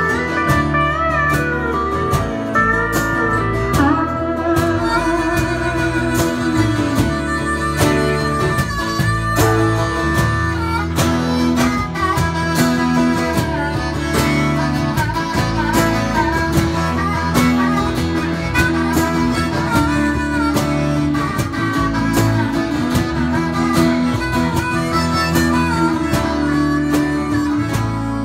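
Live country band playing an instrumental break with acoustic guitar, electric bass and drums. A pedal steel guitar leads with gliding, wavering notes early on, and a harmonica carries the lead later.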